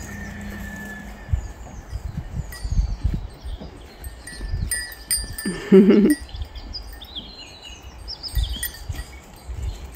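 A goat bleats once, briefly, about halfway through. Birds chirp throughout.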